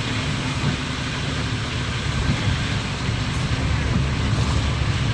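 Steady vehicle engine and road noise from a vehicle in motion: a constant low rumble under an even hiss.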